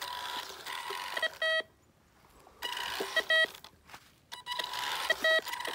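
Homemade metal-detector RC car: its small electric motor running, with the detector's buzzer giving short beeps, in pairs about every two seconds, and quiet gaps between bursts of running.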